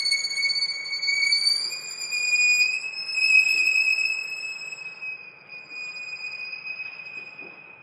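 Solo violin holding a single high bowed note, edging very slightly up in pitch, that slowly fades away near the end.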